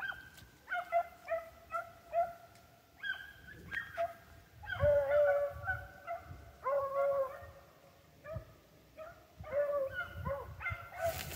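Rabbit-hunting dogs baying as they run a rabbit's scent trail: a string of drawn-out, pitched bays and short yelps, with more than one dog's voice overlapping at times.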